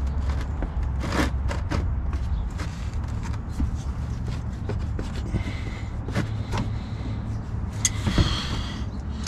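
Pliers clicking and scraping on a spring hose clamp as it is worked along the lower radiator hose, with a brief faint squeak midway and a few sharper clicks near the end, over a steady low rumble.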